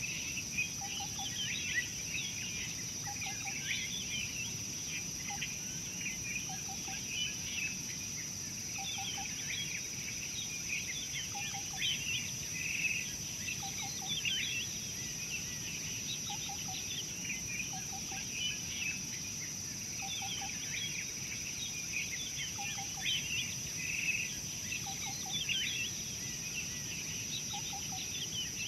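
Outdoor bush ambience: many small birds chirping and calling throughout, over a steady high insect drone, with a low double note repeating every second or two.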